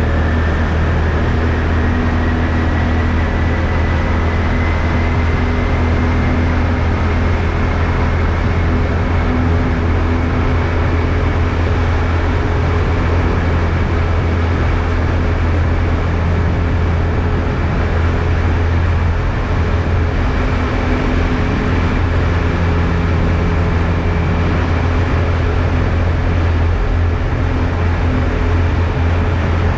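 ATV engine running steadily under way, a constant low drone with noise from the drive, and a faint whine that rises slowly over the first several seconds.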